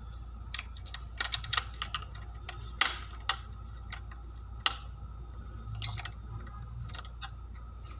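Scattered small metallic clicks and taps of hands and tools working around the spark plug of a grass cutter's small engine, with a few sharper knocks; the engine is not running.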